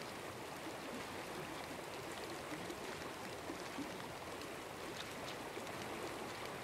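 Soft, steady rush of running water with faint scattered drips.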